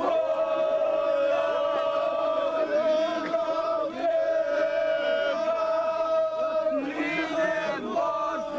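A group of people singing together in long drawn-out notes, several voices at once, the tune held for several seconds at a time.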